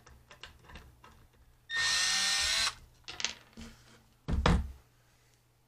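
Cordless drill-driver runs steadily for about a second, backing a screw out of a wooden board. A few light clicks follow, then a short thump about a second and a half later, the loudest sound.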